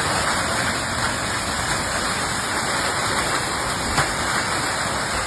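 Heavy thunderstorm rain pouring down steadily, a dense even hiss of falling water, with one sharper tap about four seconds in.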